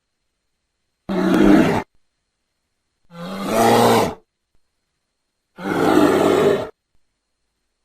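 Three separate bear roar sound effects, each about a second long, with silence between them.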